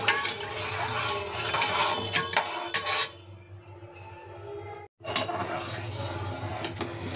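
Steel ladle scraping and clinking against the side of a metal pot while stirring milk as it heats. The clinks ease off about three seconds in, break off briefly near the middle, then the stirring resumes.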